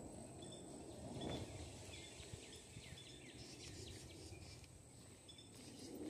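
Faint woodland ambience of small birds chirping, short high calls and quick falling notes repeating, over a steady thin high-pitched tone. A soft low rustle swells about a second in.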